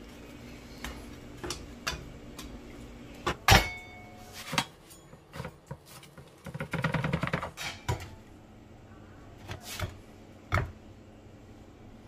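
Kitchen handling: a metal spatula clicking and knocking against a nonstick frying pan, the loudest knock about a third of the way in, over a low hum that stops around the same point. Just past the middle a knife crunches through the toasted grilled cheese sandwich on a wooden cutting board, followed by a few more light knocks.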